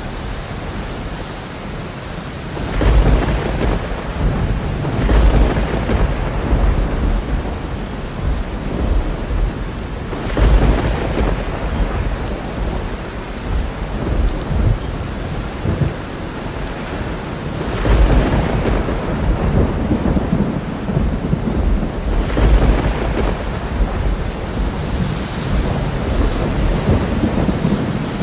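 Thunderstorm: steady heavy rain with rolling thunder rumbling in several deep swells, the strongest about 3, 10, 18 and 22 seconds in.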